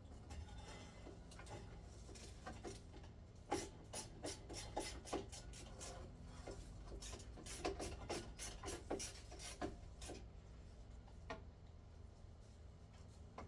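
Irregular light clicks, knocks and scraping from hands working on a ceiling fan's blade hardware, thickest in the middle of the stretch.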